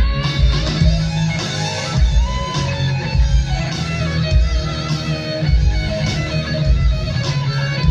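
Live rock band playing: electric guitars over bass guitar and drums, with recurring heavy low drum and bass hits.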